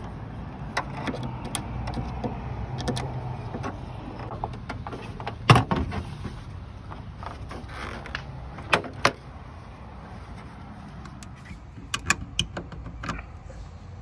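Clicks and knocks of the plastic liftgate trim panel on a 2002 Dodge Durango being worked loose and handled to reach the third brake light. The loudest knock comes about five and a half seconds in, with a pair about nine seconds in and a run of small clicks near the end, over a low hum during the first five seconds.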